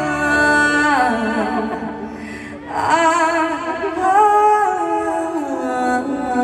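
A woman singing live into a microphone over band backing, holding long notes with vibrato, with a short pause a little past two seconds in before the next phrase.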